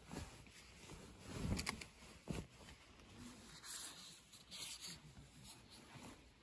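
Bedding being handled: a duvet and blankets rustling as they are moved by hand, with a couple of soft bumps about one and a half and two and a half seconds in.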